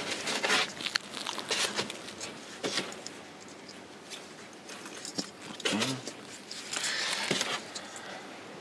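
Handling sounds as balls are set into holes in a wicker chest's foam lining: scattered soft knocks, taps and rustles. A brief voice-like sound about six seconds in.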